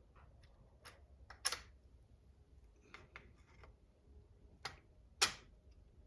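Light, scattered clicks and taps of small parts and tools being handled while a wheelie bar is fitted to an RC car chassis, with two sharper clicks, one about a second and a half in and one near the end.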